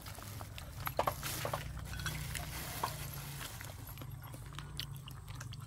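Eating at a hotpot: scattered light clicks and knocks of chopsticks against small bowls and a steel pot, with chewing, over a low steady hum.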